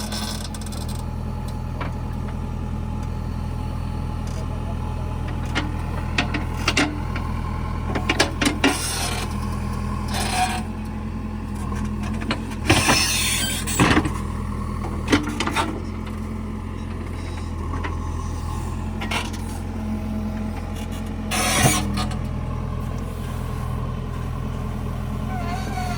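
JCB 3DX backhoe loader's diesel engine running steadily, with a series of sharp knocks and short scraping bursts from the digging in the middle and once more near the end.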